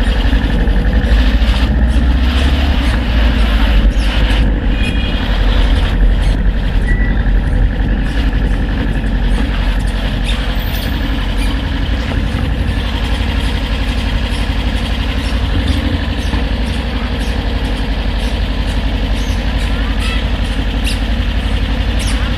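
Suzuki Inazuma GW250's 248 cc parallel-twin engine running steadily at low speed, with a deep rumble.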